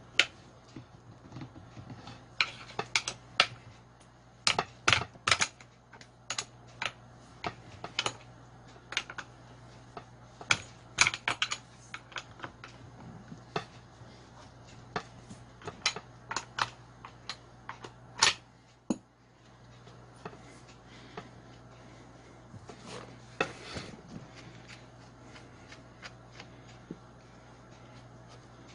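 Irregular metallic clicks and taps of a spanner working the bar nuts and handling the clutch cover of a Husqvarna chainsaw as the cover is removed, over a steady low hum.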